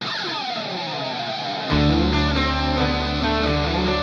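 Guitar-led rock music intro. It opens with a falling, sliding sound, and about a second and a half in the bass and full band come in, louder.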